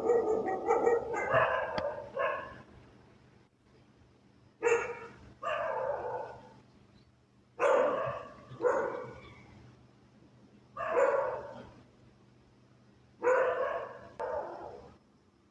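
A dog barking: a quick run of barks at the start, then barks mostly in pairs, about every three seconds.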